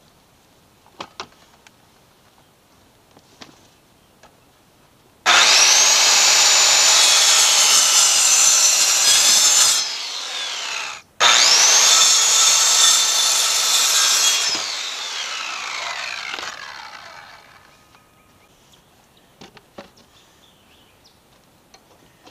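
Circular saw cutting through a pressure-treated 4x4 post in two passes. Each time, the motor spins up and the blade runs through the wood, then the blade winds down with a falling whine after the trigger is released.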